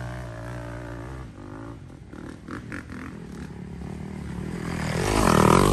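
Dirt bike engines running and revving on the race course. One bike grows louder and peaks near the end as it comes close.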